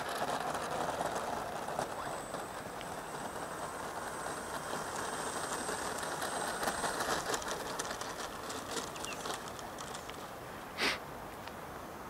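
Outdoor wind noise buffeting the microphone, with a thin, steady high whine from about two to seven seconds in and a short, sharp gust of noise near the end.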